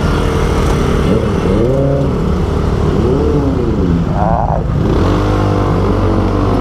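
Motorcycle engine revving up and falling back three times over a steady low drone, then running at a steady pitch from about five seconds in.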